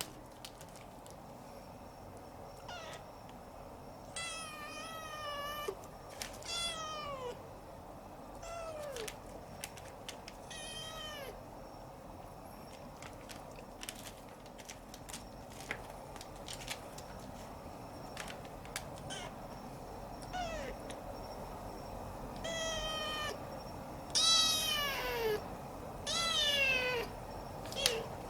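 Siamese kitten mewing over and over: about a dozen high, thin mews, each dropping in pitch at the end, with faint light clicks between them.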